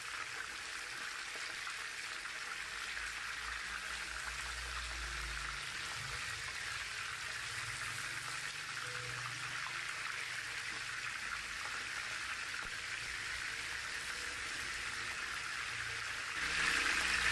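Chicken pieces deep-frying in hot oil in a pan: a steady sizzle, louder near the end as a piece is moved with tongs.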